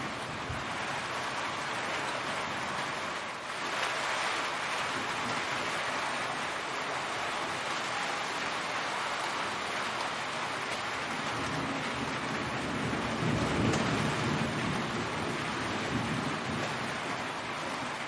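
Heavy rain falling steadily, with water running and dripping off the edge of a corrugated roof. A low rumble swells up about two-thirds of the way through.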